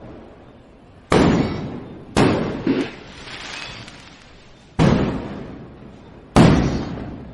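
Firecrackers going off: four loud bangs a second or two apart, with a smaller bang just after the second, each dying away over about a second.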